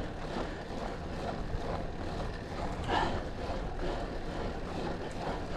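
Steady low rumble and hiss of wind and road noise on a camera riding on a road bike climbing on asphalt, with a brief louder sound about three seconds in.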